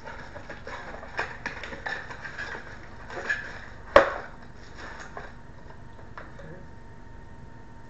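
Cardboard and paper packaging being handled and pulled apart: rustling with a run of small clicks and taps, a sharp snap about four seconds in, then it goes quieter.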